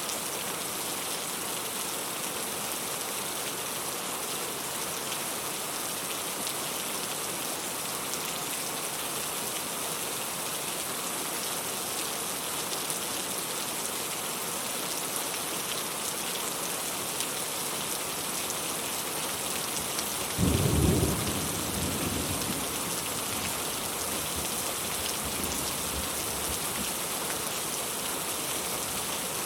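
Steady hiss of rain falling, with a few faint crackles. About two-thirds of the way through, a sudden brief low rumble breaks in and fades over a second or two.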